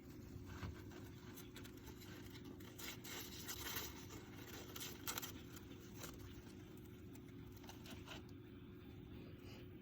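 Faint, irregular scratching and rustling from a pet hamster moving about in its cage bedding, with a small cluster of quick scratches a few seconds in and another about five seconds in, over a steady low hum.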